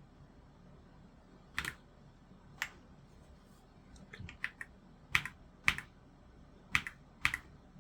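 Keys on an AULA F87 gasket-mounted mechanical keyboard pressed one at a time, about a dozen separate clacks at an uneven pace, with a quick cluster in the middle. This is the Fn and Insert combination being pressed to cycle the RGB lighting modes.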